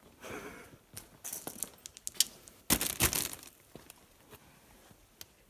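Crunching and crackling of footsteps and handling on debris-strewn ground, a run of sharp short cracks with the two loudest close together about three seconds in, then fading to faint ticks.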